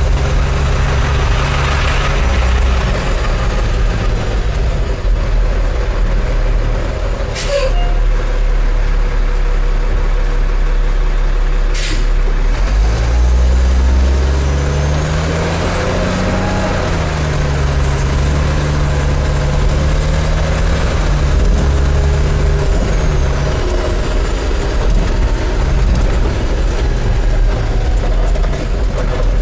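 Cummins diesel engine of a 2005 Autocar Xpeditor garbage truck, heard from inside the cab while driving. Its pitch rises as the truck accelerates about halfway through, then drops and holds steady. Two short sharp sounds, about four seconds apart, stand out in the first half.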